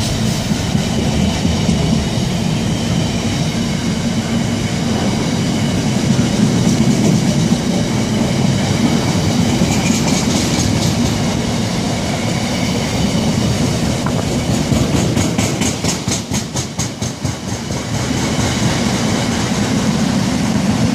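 Container wagons of a freight train passing close by, a loud continuous rumble of steel wheels on rail with a high ringing over it. Runs of rapid rhythmic clicking come about ten seconds in and again near sixteen seconds, as wheelsets pass over rail joints.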